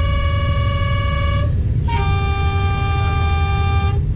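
Train horn sounding two long blasts, a higher one that stops about a second and a half in, then a lower one lasting about two seconds, over the steady low rumble of the running train.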